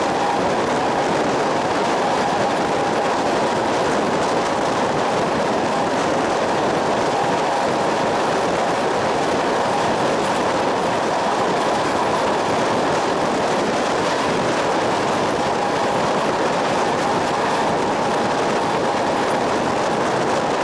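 A train running along the track: a steady rolling noise with a faint, steady high-pitched tone over it.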